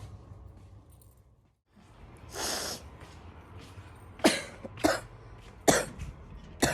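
A girl with bronchitis coughing: a long, noisy breath about two seconds in, then four short, sharp coughs spread over the last few seconds.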